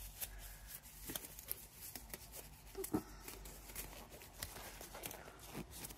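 Thin disposable gloves being pulled onto the hands: faint scattered rustles and small snaps of the glove material, the loudest about three seconds in.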